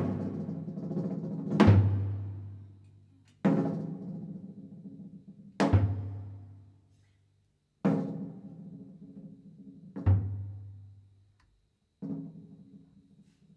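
Slow, sparse live jazz from piano, double bass and drum kit: a low drum or bass hit alternates with piano chords, one struck sound about every two seconds. Each rings and fades, sometimes to near silence, before the next.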